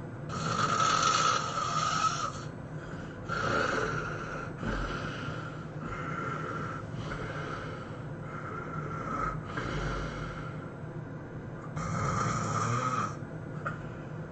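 A person snoring hard: a string of loud, harsh snores about a second each, coming roughly one a second, the loudest at the start and again near the end.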